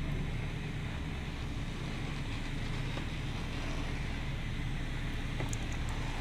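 Touchless in-bay automatic car wash spraying pre-soak over a truck, heard from inside the cab: a steady low rumble under an even hiss of spray on the glass and body, with a few faint ticks near the end.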